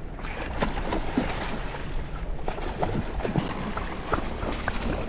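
Sea water sloshing and splashing against shoreline rocks, with many short irregular splashes, while wind buffets the microphone with a low rumble.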